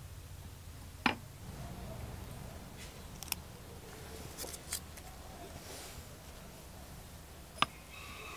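A few sharp, light clicks of a small cut brass spoon-lure blank being handled and set down on a wooden block, one about a second in and one near the end, with a few smaller ticks between, over a faint low hum.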